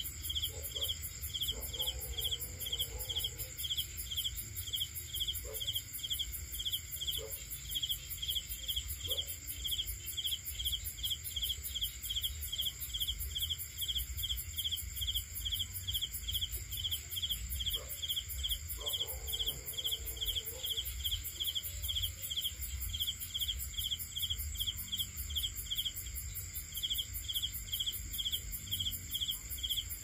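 Night insects chirping: a high chirp repeated at an even, steady rhythm over a continuous high-pitched insect trill.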